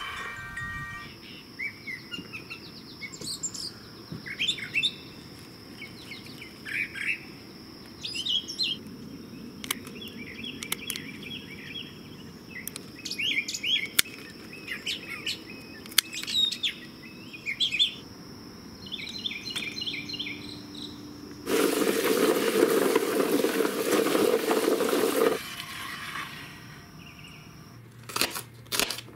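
Small birds chirping and calling in short phrases over a steady thin high whine. About three-quarters through, a loud rushing noise lasts about four seconds. Near the end come a few sharp clicks of a knife cutting sugar snap pea pods on a cutting board.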